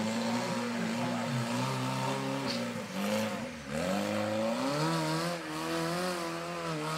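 Rock-crawler buggy engine running and revving up and down, its pitch dropping sharply about three and a half seconds in and then climbing again.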